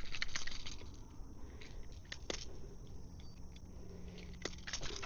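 Scattered small clicks and crackles of close handling: a quick cluster at the start, then single clicks about two seconds in and near the end.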